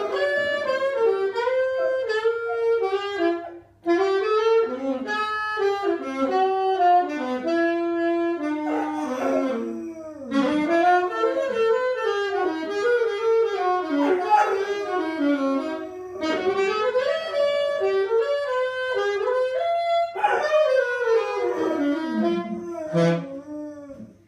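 A saxophone playing a slow melody in phrases, with a dog howling along to it in long rising and falling wails.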